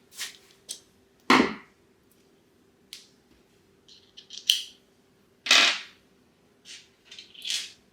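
Irregular clicks, knocks and short rattles from handling a small screwdriver and screws while fitting a doorbell's back plate. The sharpest knock comes about a second in, and a longer rattle comes past the halfway point.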